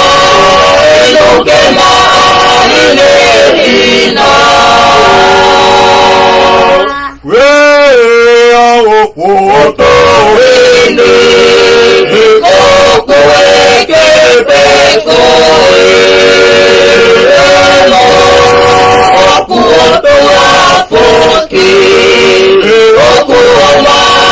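A family of men, women and children singing a hymn unaccompanied, holding long notes in several parts. About seven seconds in, one voice carries on alone for a moment with a wavering pitch before the others rejoin.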